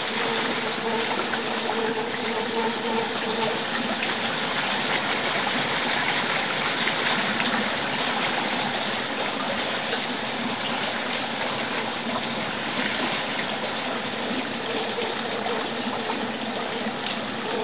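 A small boat's motor running steadily, with water churning and rushing along the hull. A faint steady tone sits under the water noise for the first few seconds and again near the end.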